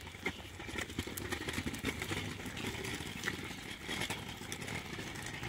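Small plastic wheels of a pushchair and a child's kick scooter rolling and rattling over rough asphalt, a steady rumbling noise with many small clicks and knocks, mixed with footsteps.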